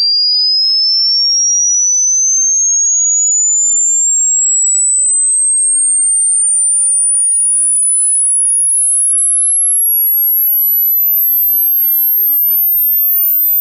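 A pure sine-wave test tone gliding steadily upward, rising from a high whistle to a very thin, very high pitch. This is the middle part of a 20 Hz to 20 kHz sine sweep test.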